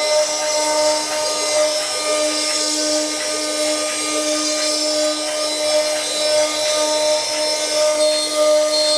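CNC wood lathe-engraving machine running, its spindle whining at a steady pitch over a continuous hiss as it works the wood.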